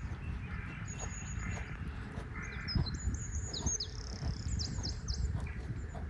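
Small wild birds chirping and whistling in high, thin notes: a short phrase about a second in, then a run of quick falling chirps in the middle. A steady low rumble sits beneath.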